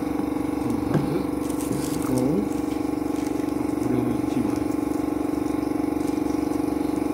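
A steady machine hum, with faint voices in the background and a brief crinkle of tissue paper about one and a half seconds in.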